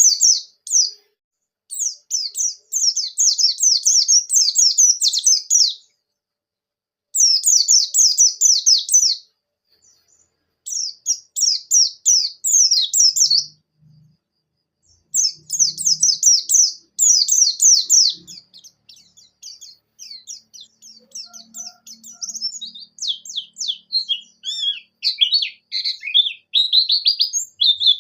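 White-eye (pleci) singing fast, high-pitched twittering phrases of a few seconds each, with silent gaps between them; near the end the notes drop lower and come more loosely.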